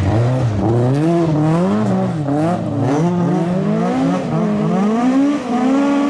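Ford Escort rally car's engine revving up and down in quick repeated swings, then climbing steadily and holding high revs near the end.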